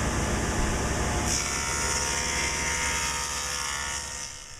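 Delta table saw running with a dado blade stack, cutting a dado across a wooden shelf board as it is pushed along the fence: a steady machine whine that fades out near the end.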